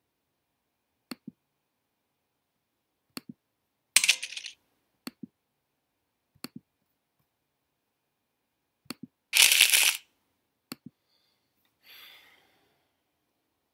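Small sharp clicks in pairs every couple of seconds, and two short loud bursts of hiss, about four and nine and a half seconds in. Near the end a faint rustle comes as a whiteboard marker is picked up.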